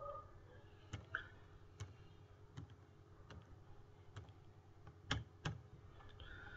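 Faint, sharp computer clicks, roughly one a second, the two loudest close together about five seconds in.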